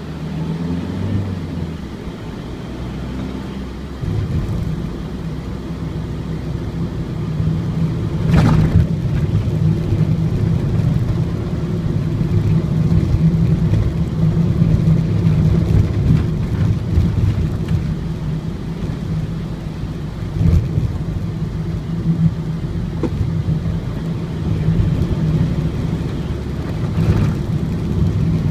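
Ford Transit four-cylinder diesel van driving on the road, heard from on board: a steady engine drone with road rumble, with a sharp thump about a third of the way in and lighter knocks later.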